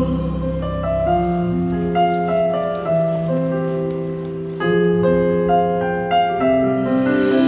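Live keyboard accompaniment playing slow, sustained chords, with no singing; a new chord comes in strongly about halfway through.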